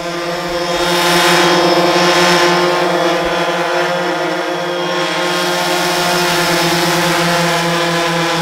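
Quadcopter drone propellers buzzing at a steady pitch, growing louder over the first second and then holding.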